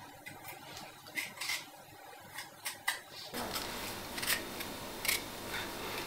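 Hand-held vegetable peeler scraping the skin off a potato in a series of short, sharp strokes.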